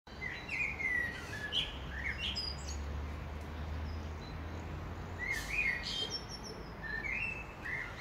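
A songbird singing short phrases of high, sliding and warbling notes, with a pause of about two seconds midway; its song is very like a nightingale's.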